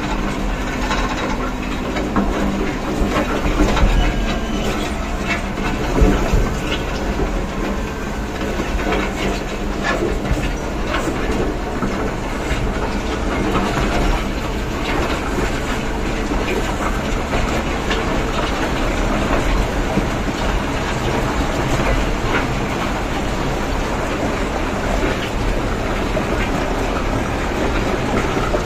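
Diesel engine of a heavy mining machine running steadily, heard from inside its cab, with a continuous rumble and scattered rattles and clatter as it moves slowly.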